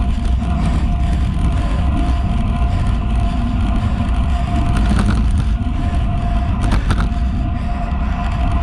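Wind rushing over a handlebar-mounted GoPro and tyre rumble on asphalt as a road bike rolls at about 40 km/h, steady and loud, with a faint steady whine above it. Brief clatters come about five and seven seconds in.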